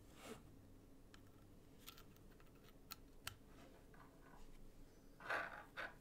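Mostly near silence, with a few faint, sharp clicks in the middle and two short rustling sounds a little after five seconds. They come from hands moving about the desk, mouse and keyboard before typing starts.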